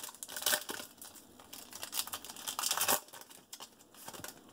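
Silver foil trading-card pack being torn open and its wrapper crinkled in the hands: irregular crackling, loudest about half a second in and again just before three seconds, then fading to light rustling.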